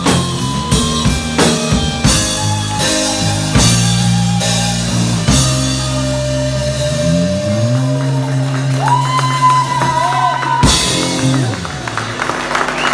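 Rock music with a drum kit and guitar. Steady drum beats give way about halfway to long held notes that slide up and down in pitch, with a single loud crash near the end.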